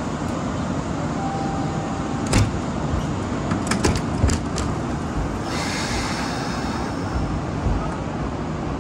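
Kintetsu 2800 series electric train running, heard from the front cab: a steady rumble of wheels on rail, with a quick run of sharp clicks a couple of seconds in as the wheels pass over rail joints or points. A high hiss comes in about halfway through.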